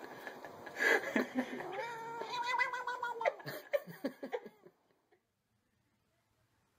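Grey cat meowing while being stroked on the head: one long drawn-out yowl held for about two seconds, then a quick run of short meows, stopping about five seconds in.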